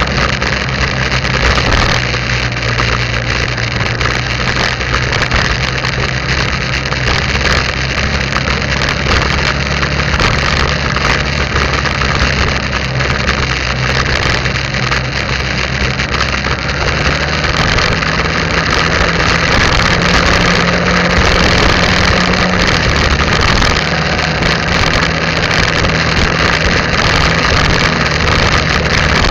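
Motorbike engine running steadily while riding, under an even rushing noise. The engine note steps up slightly a little past the middle and settles back a few seconds later.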